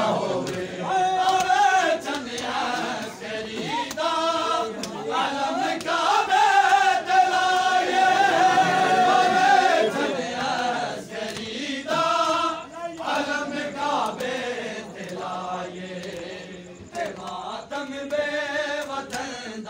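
A crowd of men chanting a nauha lament in unison, with sharp hand slaps of matam chest-beating through the chant.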